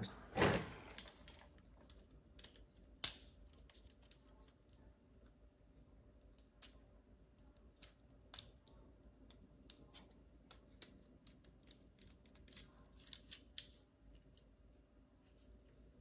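Needle-nose pliers clicking and tapping against the metal frame and plastic parts of a GFCI outlet being dismantled. The clicks are scattered and irregular, with a louder click about three seconds in and a quick run of clicks near the end.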